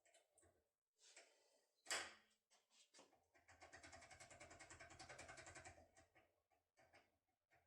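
Faint metallic clicks from a foil pick worked inside an ABUS XD25 lock cylinder: one sharp click about two seconds in, then a rapid rattle of about ten ticks a second for some three seconds, then scattered small clicks.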